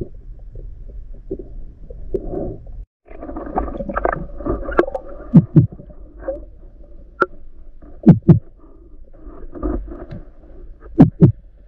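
Muffled underwater rumble from a spearfishing diver's camera, broken by sharp clicks with low knocks, the loudest coming as two close pairs in the second half.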